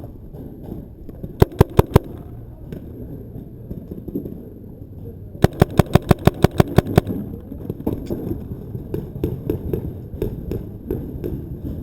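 Paintball markers firing: a quick burst of about five shots, then a rapid string of about a dozen shots at roughly eight a second, then fainter scattered shots near the end.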